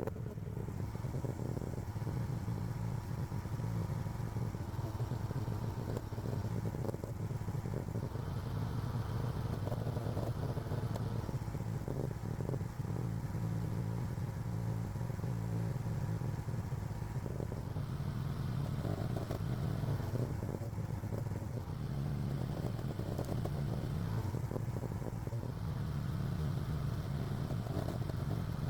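AGT LH12R mini excavator's engine running steadily while it digs, with the load on it rising and easing every few seconds as the hydraulics work, and some clatter.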